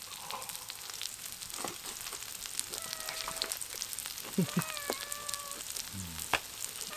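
Pork belly sizzling on a hot griddle plate: a steady hiss scattered with small crackling pops.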